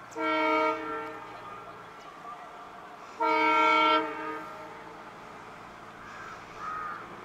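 Horn of an Indian Railways WDP-4D diesel locomotive sounding two blasts about three seconds apart, each about a second long and made of several steady tones at once.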